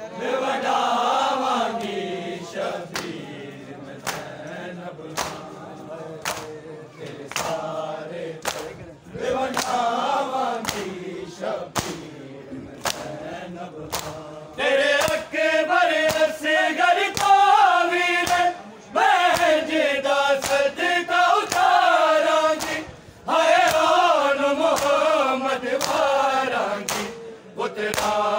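Men chanting a nauha lament with the crowd's bare-handed chest-beating (matam) slapping in a steady beat, a little more than one stroke a second. The chanting swells louder about halfway through.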